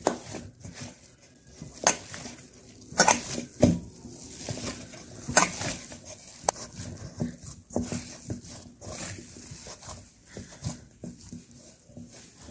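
Hands kneading an oiled dough of potato and cooked semolina in a stainless steel bowl. The dough gives irregular soft squelches and slaps, with now and then a knock against the metal bowl.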